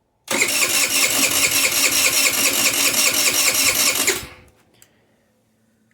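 GY6 scooter engine being turned over by its electric starter for about four seconds without firing, an even rhythmic cranking that then stops. It won't start because of a clogged pilot jet.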